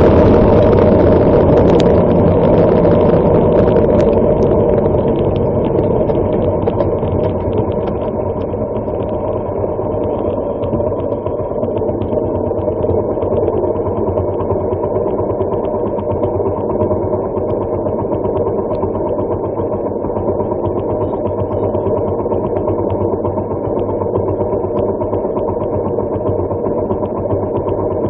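Harley-Davidson Sportster SuperLow XL883L's 883 cc V-twin, heard close up. It eases off from riding speed over the first several seconds, then idles steadily with the bike stopped.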